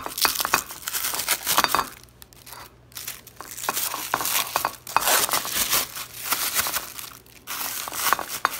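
Thin plastic bag crinkling and rustling as hands pull it off a plate, in irregular bursts with a short pause about two seconds in.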